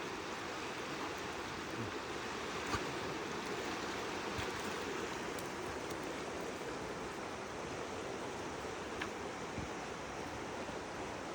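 River water flowing steadily over rocks, with a few faint small knocks.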